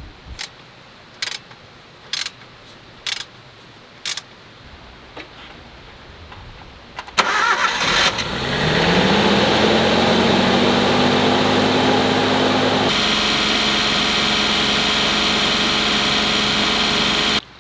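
A Suzuki Jimny JA12's small three-cylinder engine being started, most likely to test the newly fitted alternator. A few sharp clicks come about a second apart, then the engine cranks and catches about seven seconds in. Its revs climb into a steady idle, and the sound changes partway through before cutting off abruptly.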